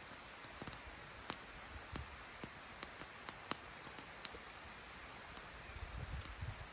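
Campfire crackling faintly: scattered sharp pops and snaps at irregular intervals over a steady hiss, with a few soft low thuds near the end.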